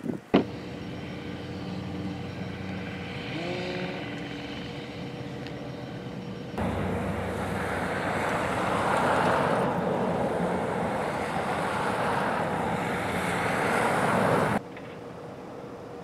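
A car engine running while people push the car, stuck in snow, with a brief rise in pitch about four seconds in. After about six and a half seconds there is a louder steady rush of traffic and blowing snow on a snowy street, which cuts off abruptly near the end.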